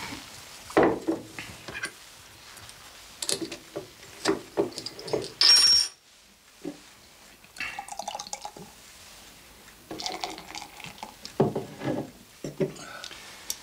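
A bottle of beer opened and poured into a glass, with glasses and bottles clinking and knocking on a wooden table.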